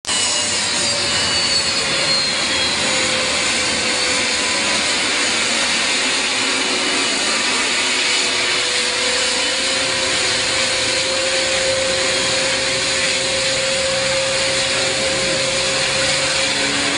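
Beriev Be-200 amphibian's two Progress D-436TP turbofan engines running at taxi power: a steady jet whine and rush, with high tones sliding slowly downward over the first few seconds.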